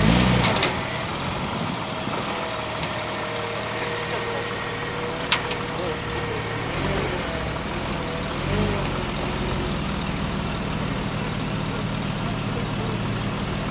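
Off-road vehicle engine idling steadily, with a few sharp clicks near the start and one about five seconds in, and faint voices behind.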